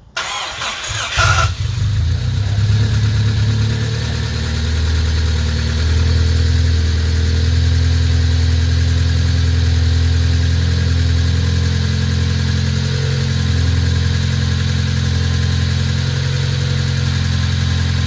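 Mazda car engine cranking and catching in the first second or so, then idling steadily and loudly. Transmission fluid has been added to the engine oil to flush the engine before an oil change.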